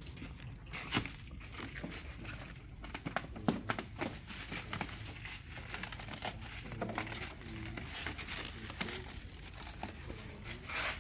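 Plastic packing wrap being crumpled and torn off, a run of irregular crinkles and crackles.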